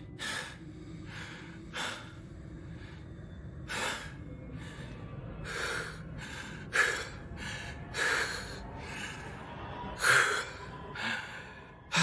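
A man's heavy, ragged panting: a long string of hard breaths and gasps, about one or two a second, growing louder and more forceful in the second half.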